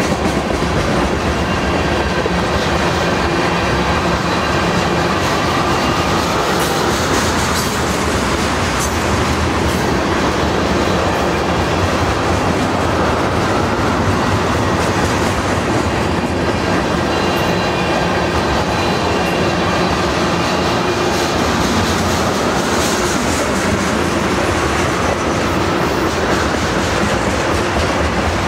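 Freight train of tank cars rolling past: a steady rumble of steel wheels on the rails, with wheels clicking over rail joints and faint high wheel squeal at times.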